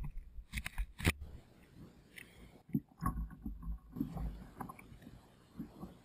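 Water splashing and irregular knocks against a kayak hull as a small shark is held alongside on the leader, with low gusts of wind rumbling on the microphone.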